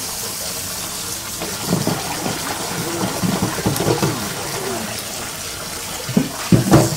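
Water running steadily from a tap, with some low voices mixed in. It cuts off suddenly at the end.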